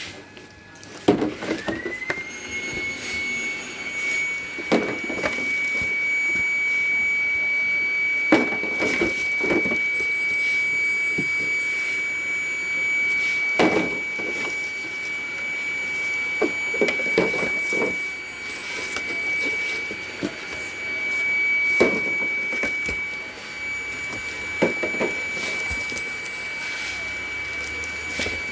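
Cardboard, crumpled packing paper and hard plastic parts rustling and knocking as the box is unpacked. Under them a motor whines: it spins up about a second in, then holds a steady high pitch.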